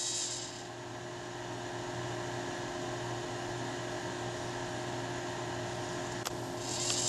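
Steady electrical hum with several fixed tones and a faint hiss, with a higher whirring hiss fading out in the first half-second. A single sharp click comes about six seconds in.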